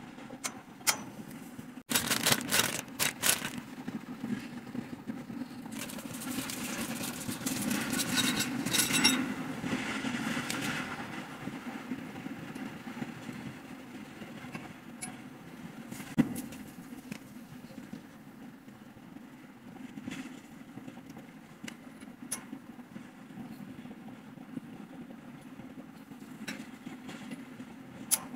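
Steel tubes of a flat-pack stand clinking and knocking as they are handled and fitted together: a cluster of knocks about two seconds in, a longer stretch of rattling and scraping in the middle, and one sharp knock later, over a steady low background hum.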